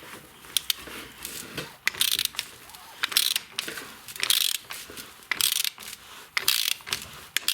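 Ratchet clicking in short runs about once a second, with metal clicks between, as a homemade socket tool winds a rear brake caliper piston back into its bore.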